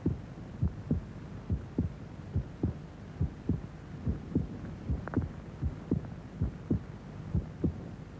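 A heartbeat sound effect: steady low double thumps, about a hundred beats a minute, over a faint hum.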